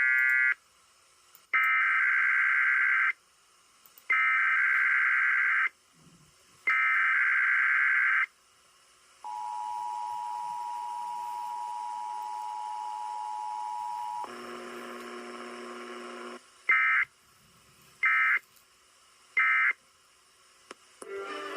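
Emergency Alert System test on broadcast radio: the SAME header's loud warbling data bursts, four of them with short gaps. Then the steady two-note EAS attention tone sounds for about five seconds. After a brief lower buzz, three short end-of-message data bursts follow.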